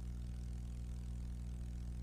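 Steady low electrical hum with a faint hiss underneath.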